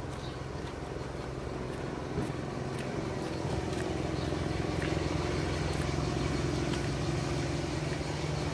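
A motor vehicle engine running steadily, its low hum growing gradually louder over the seconds.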